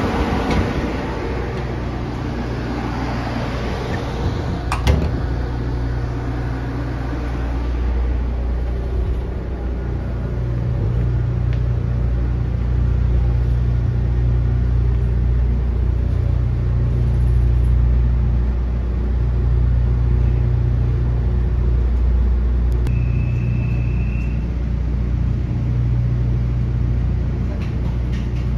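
Steady low hum of a standing JNR-era 455/413 series electric train's onboard equipment, heard inside the car, its upper note swelling and fading every few seconds. A sharp click comes about five seconds in, and a short high beep a little past twenty seconds.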